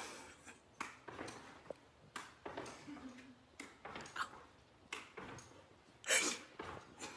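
A dog leaping and bouncing about, with a series of short, sharp sounds at uneven spacing, one or two a second; the one about six seconds in is longer and louder.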